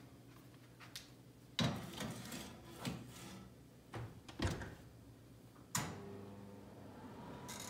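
Clunks and knocks of an oven rack and pie dish as the dish is slid into a built-in oven, then the oven door shut with a sharp clunk about six seconds in.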